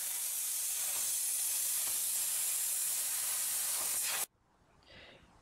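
Hypertherm Powermax45 air plasma cutter hissing steadily as its torch cuts through rusted sheet-metal floor pan. The hiss stops abruptly about four seconds in.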